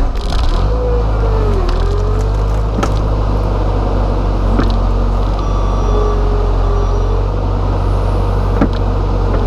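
JCB 135 skid steer's diesel engine running steadily at working speed, with a whine whose pitch dips and recovers about a second in as the engine takes load. A few short knocks and clunks sound from the machine at work.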